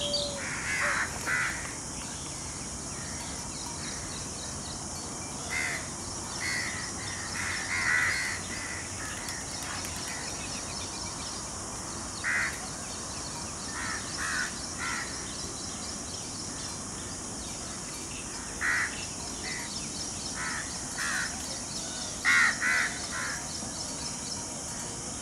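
Short, harsh bird calls in twos and threes every few seconds, the loudest group near the end, over a steady high hiss.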